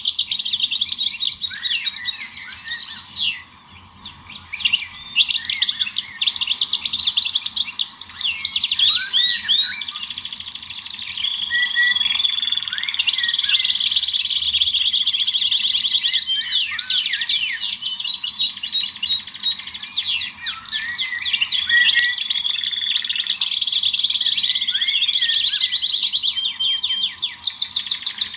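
Many small birds chirping and singing at once, a dense, continuous chorus of rapid high-pitched chirps and trills that overlap, with a short lull about three seconds in.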